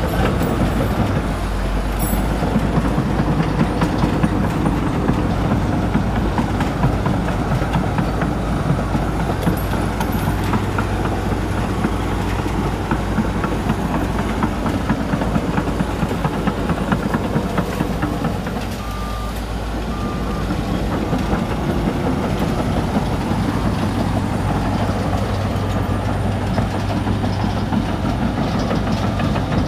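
Komatsu D61EX crawler bulldozer working: its diesel engine runs steadily under load, with clattering steel tracks. The engine eases briefly about two-thirds of the way through, where a few short high beeps sound.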